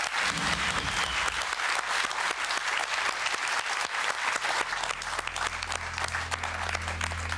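Studio audience applauding, a dense clapping that eases slightly near the end.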